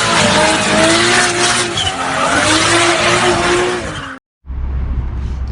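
A car doing a burnout: the engine held at high revs while the tyres spin and squeal. It cuts off abruptly about four seconds in, leaving a low steady hum.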